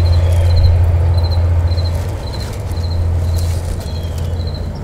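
A cricket chirping steadily, short high chirps about twice a second, over a steady low rumble that is the loudest thing throughout. Dry corn leaves rustle a few times as they are handled.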